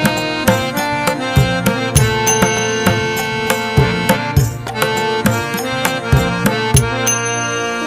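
Background music: pitched instruments over a steady drum beat, about two strikes a second.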